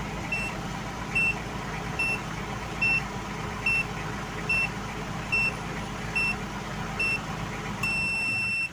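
Ford Everest turbodiesel idling with the key off, kept running by an HKS turbo timer that beeps about once a second as it counts down its last seconds. Near the end a longer beep sounds and the engine stops as the timer shuts it off.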